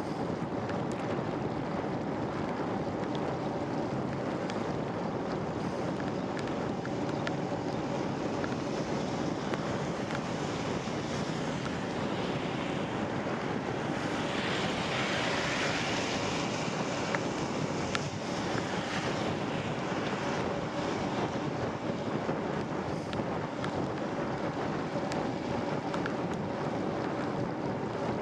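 Wind buffeting the microphone over the steady hiss of a ride on wet road in the rain, with a faint steady hum underneath. A louder hiss swells and fades about halfway through.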